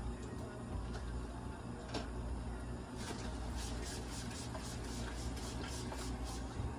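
Veterinary nebulizer running for a cat's inhalation therapy, a steady low hum as it blows mist through a hose. A run of faint quick ticks joins the hum about three seconds in.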